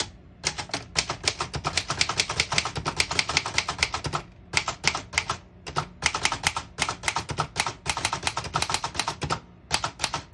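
Remington Model 4 portable typewriter being typed on: a rapid run of sharp key strikes, several a second, with short pauses about four seconds in and near the end. The keys strike cleanly without sticking.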